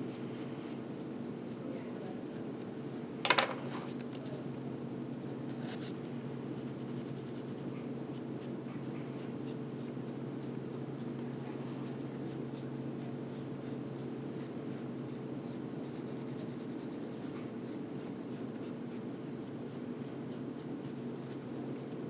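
Green Scotch-Brite pad lightly rubbed back and forth over unfired clay, giving faint scratchy rubbing over a steady low hum. One sharp tap comes about three seconds in.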